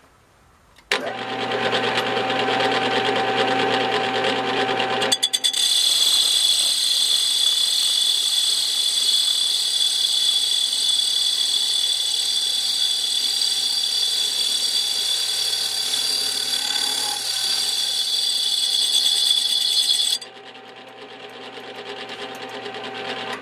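Small HQ400 lathe-mill-drill starts up about a second in and runs with a low hum. About five seconds in, a boring bar starts cutting into the rusty inside of a Triumph motorcycle rear brake drum, giving a loud, steady, high-pitched squeal. The squeal stops sharply near the end while the lathe keeps running.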